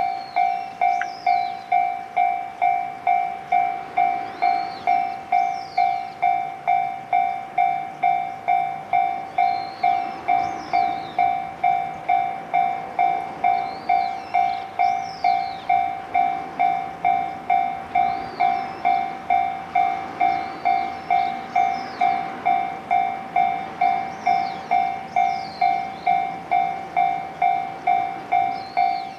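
Electronic railway level-crossing bell ringing steadily, a clanging tone struck about twice a second, warning of an approaching train. A bird chirps every few seconds.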